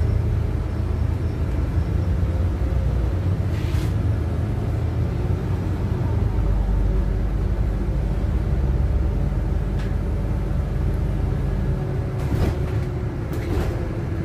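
Inside a LiAZ 5292 city bus on the move: a steady low engine and road rumble, louder for a few seconds in the middle, with a few brief sharp rattles.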